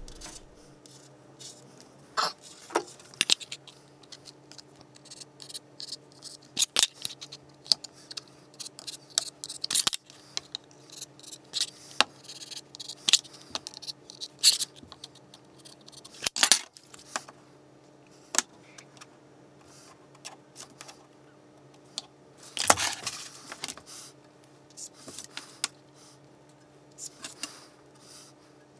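Scattered clicks, taps and short scratches of a steel rule and a marking tool being handled and drawn across a plastic sheet on a workbench, with a longer scratching run a little after two-thirds of the way through. A faint steady hum sits underneath.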